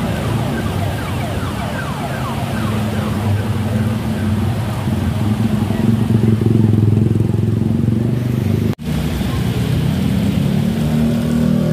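Motorcycle engines running and traffic passing on a wet road in heavy rain: a steady engine hum under the hiss of rain and tyres. The sound cuts out for an instant about nine seconds in.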